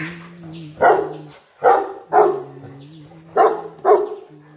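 Dogs barking while they play rough together: five short, loud barks, two close together about two seconds in and two more near the end.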